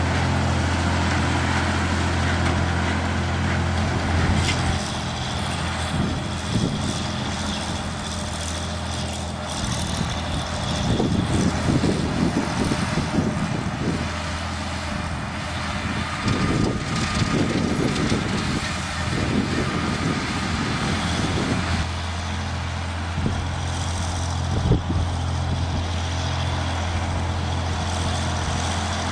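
Case farm tractor engine running steadily with a low hum as it pulls a rotary mower through tall grass and brush. A rougher, uneven noise comes and goes through the middle stretch.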